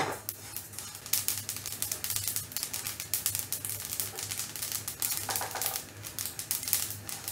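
Sesame seeds crackling and popping as they dry-roast in a nonstick kadhai: a dense, irregular run of rapid tiny ticks, with a spatula stirring through the seeds now and then. The crackling is the sign that the seeds are roasted.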